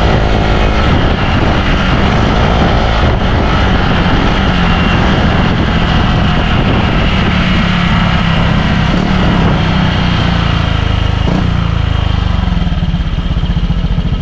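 Honda Click scooter's single-cylinder engine running steadily through a Sun Racing Silent Killer aftermarket power pipe exhaust.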